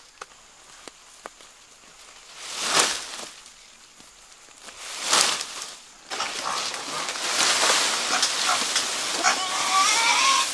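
Green corn plants rustling in two loud swishes as stalks are cut. From about six seconds, a steady rustle of corn leaves, with a pig's wavering high calls near the end as the leaves are fed into its trough.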